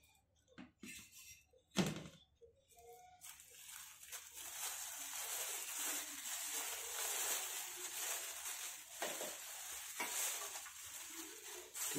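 A sharp knock about two seconds in as the metal pot-stand grate is set down on the stove, then continuous crinkling of clear plastic wrap as the plastic-wrapped portable gas stove is handled.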